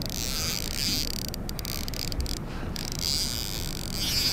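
Insects chirring in a steady, high-pitched chorus that drops out briefly twice.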